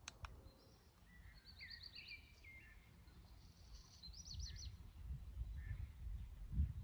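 Songbirds singing in short, high trills and chirping phrases, over a low rumble that grows louder in the second half. Two sharp clicks right at the start.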